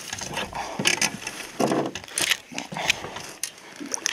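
Irregular clicks, knocks and rustles of a black bass being handled in a plastic-gloved hand on a boat deck, with scattered short bursts of noise.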